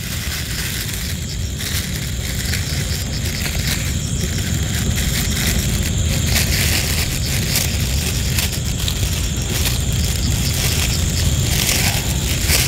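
Plastic bag crinkling and rustling in the hands as salted fish is unwrapped, with many small irregular crackles. Under it runs a steady low rumble and a thin, steady high whine.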